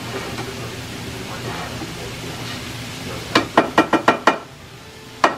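Ground meat sizzling in an electric skillet, then a quick run of about six sharp spatula taps against the pan a little past halfway, and one more tap near the end.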